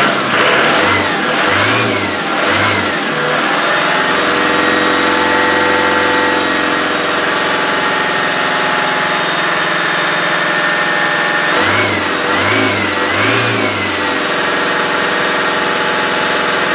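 Land Rover turbo-diesel engine idling, revved up and let fall three times in quick succession near the start and three more times about twelve seconds in. The freshly rebored engine is not running right: the owner hears a chuffing at the back and suspects too much back pressure from a broken piston ring.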